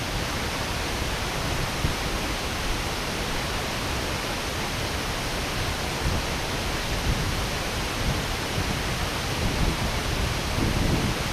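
A large waterfall rushing steadily, a dense, even roar of falling water with a deeper rumble swelling near the end.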